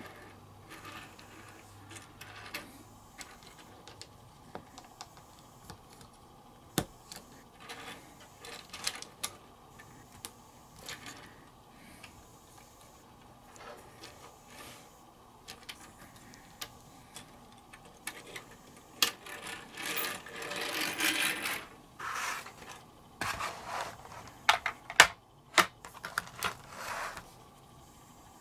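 Small plastic clicks and taps from hands handling a brick-built toy excavator. A louder stretch of rustling comes about two-thirds of the way through.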